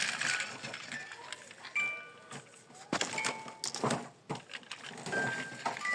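Short electronic toy beeps at several different pitches, mixed with clicks and clatter of plastic toy vehicles being handled.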